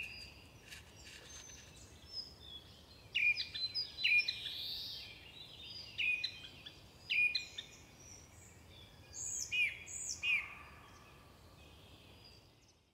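Small songbirds chirping: clusters of short, quick notes that curve sharply down in pitch, coming every second or so, with a few higher notes around the ninth and tenth second, then fading away near the end.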